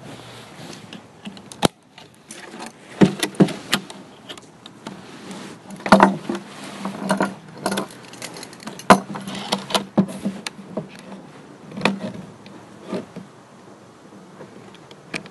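Metal snap hook and buckle of a pole saw's shoulder strap clinking and rattling against the saw's shaft as the strap is unclipped and re-attached, in irregular sharp clicks.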